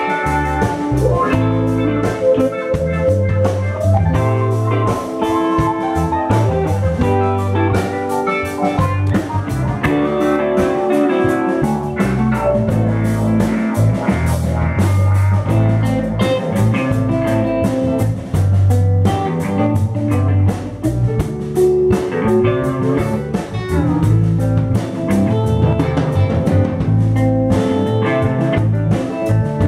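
Live band playing an instrumental jam: two electric guitars, one a Telecaster-style guitar, and a keyboard over a steady low bass line, with drums.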